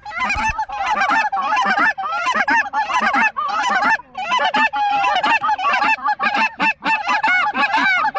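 Loud chorus of many geese honking and clucking at once, short calls overlapping without a break.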